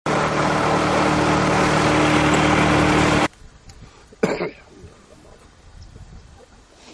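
Loud, steady motor noise with a low hum that cuts off abruptly about three seconds in, then a single shotgun shot about a second later over open water.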